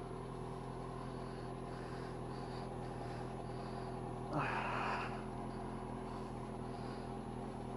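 Kawasaki ZX-6R inline-four engine idling steadily. About halfway through there is a short hiss from a squirt of the spray-on wax bottle.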